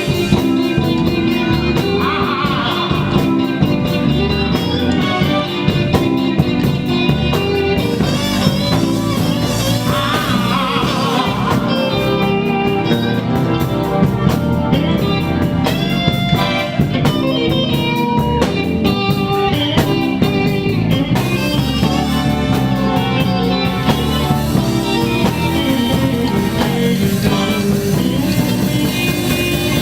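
Live band playing blues-flavoured music, a guitar taking bent, wavering lead lines over keyboards and a steady rhythm section.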